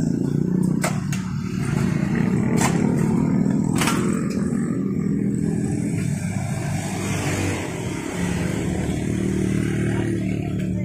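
A motorcycle engine running, its note swelling and easing a little midway, with three sharp metal clinks in the first four seconds.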